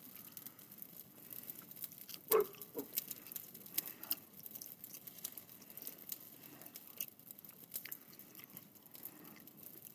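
Burning evergreen Christmas greens crackling, with many small sharp pops and snaps and one louder snap about two seconds in.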